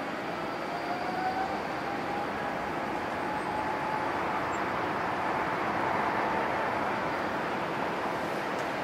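Boeing 777-300 jet engines heard across the airfield as the airliner rolls along the runway: a steady rush with a faint whine that slowly rises in pitch, swelling a little midway.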